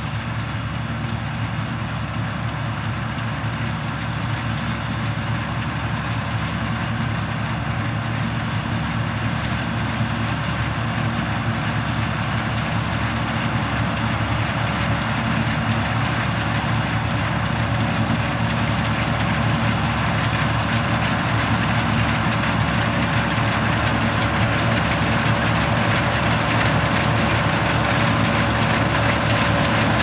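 Older New Holland combine harvester cutting barley: its diesel engine and threshing machinery running steadily, growing gradually louder as it comes closer.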